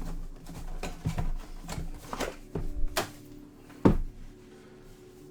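Handling noise from trading-card boxes and cases on a table: an irregular run of clicks and knocks, the loudest two about three and four seconds in. Faint background music runs underneath.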